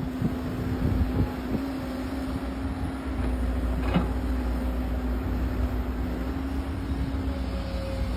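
Excavator working: a steady low engine drone with one even hum held throughout, and a few knocks about a second in and again about four seconds in.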